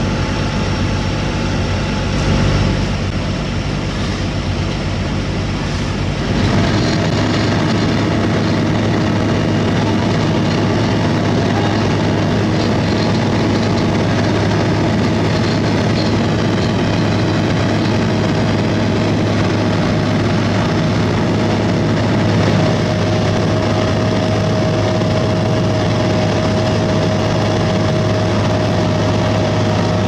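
Sumitomo HA60C asphalt paver's diesel engine running steadily at work. About six seconds in, the sound changes to a closer, slightly louder engine note with a steady whine held over it.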